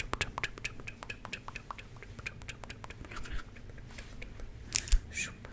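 Close-up ASMR mouth sounds: rapid wet clicks and smacks of lips and tongue right at the microphone. About five or six clicks a second at first, thinning out later, with a couple of louder hissing bursts near the end.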